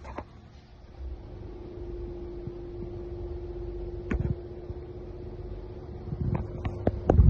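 A 1970s Rosario 16-inch pedestal fan running, its motor giving a steady hum over a low rumble. There is a knock about four seconds in and several clicks and knocks near the end.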